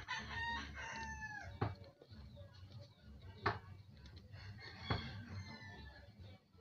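A rooster crowing: one call of a little over a second that drops in pitch at the end, then a fainter crow starting about four and a half seconds in. Three sharp clicks stand out, about one and a half, three and a half and five seconds in.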